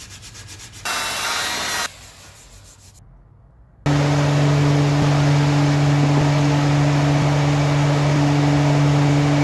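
Sanding of wood with a brief rasping stretch about a second in; then, about four seconds in, an electric power tool starts running steadily against the wood, a loud even hum over a rough scraping noise.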